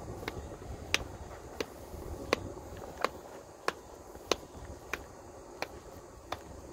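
Sharp, evenly spaced clicks, about three every two seconds, over a low steady rumble.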